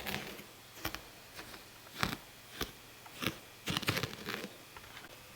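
A handful of irregular light clicks and taps, with a small cluster near the end: small plastic toy horse figures being handled and knocked against a surface.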